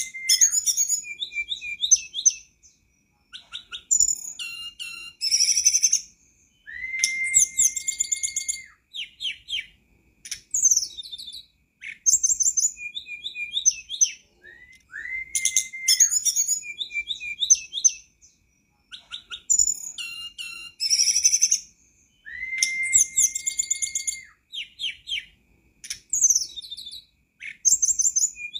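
Hill blue flycatcher song: a long level whistle that slides up at its start and drops away at its end, followed by bursts of rapid, high twittering trills. The phrase repeats four times.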